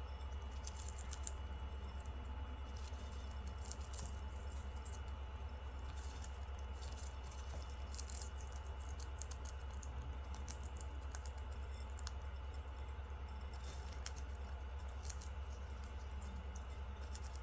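A monk parakeet crunching and nibbling popcorn with its beak: clusters of small, crisp, dry clicks that come and go every second or two, over a steady low hum.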